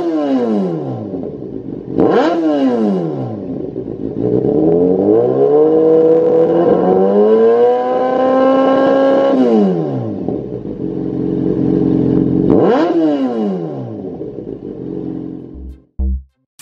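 Kawasaki Z800's inline-four engine revved through a Lextek XP13C aftermarket silencer: a quick blip of the throttle about two seconds in, then a longer rev climbing and held for about five seconds before dropping back to idle. Another sharp blip near the end, then it settles to a steady idle.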